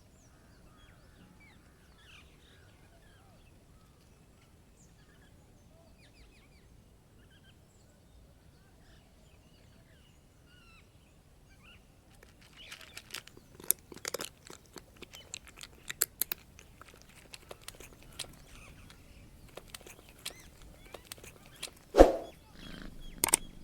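Faint bird chirps over a quiet outdoor background, then from about halfway a run of sharp crunching clicks and knocks, with one loud thump near the end.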